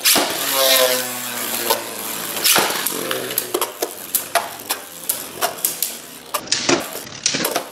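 Three left-spin Beyblade Burst tops launched into a plastic stadium, with a sudden launch noise at the start, then spinning and knocking into each other in a long run of sharp clicks.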